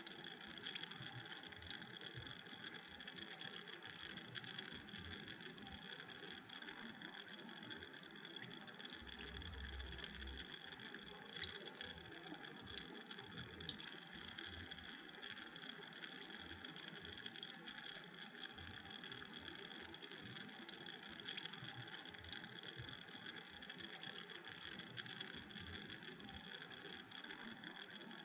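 Carbonated drink fizzing: a steady hiss of countless tiny bubbles bursting, flecked with fine crackles.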